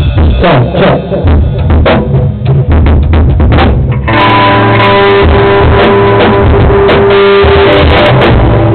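Rock band playing live: drums and bass guitar, then the full band with guitar chords crashing in about four seconds in and holding loud and dense.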